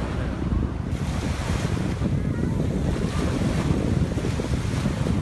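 Wind buffeting the microphone over the steady wash of small sea waves, with no break.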